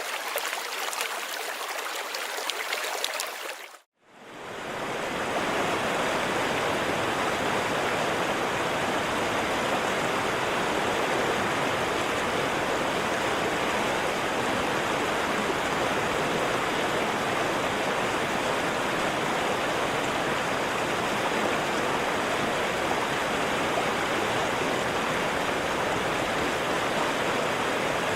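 Running river water: a bright, babbling flow for the first few seconds, then after a brief break about four seconds in, a fuller, steady rush of fast-flowing water.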